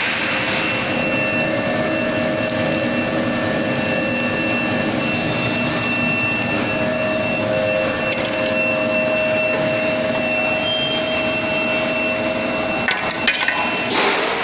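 Screw oil expeller running under load while pressing sunflower seeds: a steady machine drone with several steady whining tones. A few sharp clicks come near the end.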